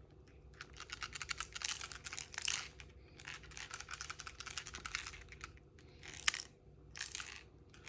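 Logitech MX Keys keyboard rattling from inside the key area: four bursts of rapid fine clicks, a sign of a loose part within the keyboard.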